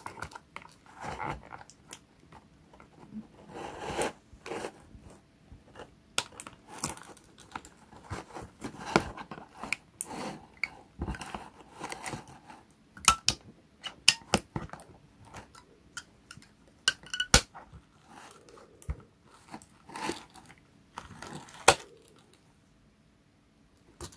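Doll packaging being handled and worked open: irregular crinkling and rustling of cardboard and plastic with many sharp clicks and snaps, dying away near the end.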